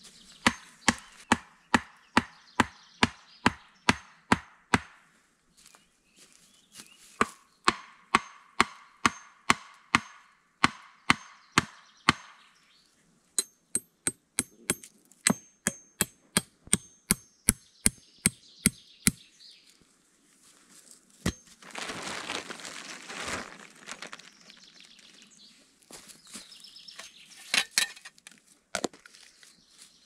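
Wood being chopped with quick, evenly spaced blows, about three a second, in three runs with short pauses between. A rustling noise follows, then two single knocks near the end.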